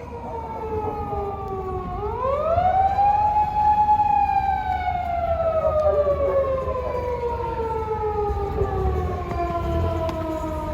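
Japanese police patrol car siren sounding its slow wail: a falling tone that rises again about two seconds in, then falls slowly for several seconds before starting to rise near the end. A low steady rumble of traffic lies under it.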